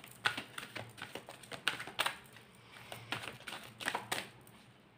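A tarot deck being handled and split into piles: a string of soft, irregular card clicks and taps, several a second, with the sharpest a little after two seconds in and again at about four seconds.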